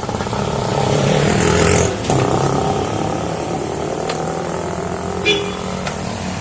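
Road traffic: a motor vehicle's engine swells as it passes close by about a second or two in, then fades back into steady traffic hum. A short, high beep sounds about five seconds in.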